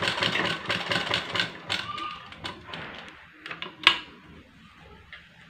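Sewing machine stitching along the edge of a blouse panel: a rapid clatter of stitches that slows and dies away after about two and a half seconds. It is followed by a few scattered clicks and one sharp click just before the end.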